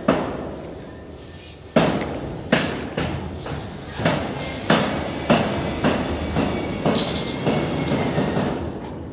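Background music with a steady beat of heavy, echoing drum hits, a little under two a second.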